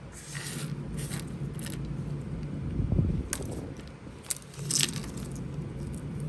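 Small costume-jewelry pieces (earrings, beads, charms) clinking and clicking against each other as they are handled and sorted, a scatter of light irregular clicks.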